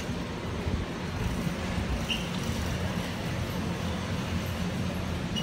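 Steady low hum with a constant rush of background noise: the ambience of a large warehouse store.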